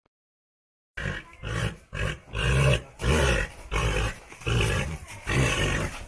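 An animal calling in a quick series of short, loud, harsh calls, about two a second, starting about a second in.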